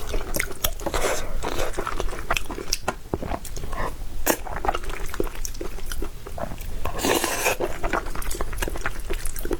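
Close-miked eating: wet chewing and biting with many small smacking clicks. A louder rush of noise comes about seven seconds in.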